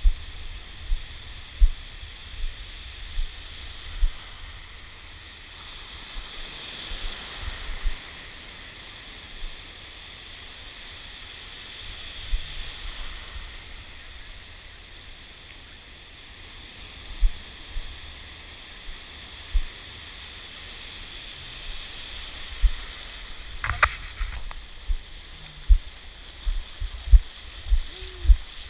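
Shallow surf washing and fizzing, swelling every several seconds as waves come through, with many short dull low thumps throughout and one brief sharp sound about four-fifths of the way through.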